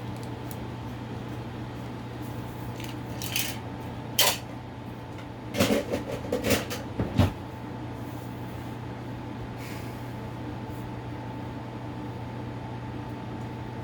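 Handling of a plastic alarm unit: a short run of clicks and knocks over about four seconds, starting a few seconds in, against a steady electrical hum.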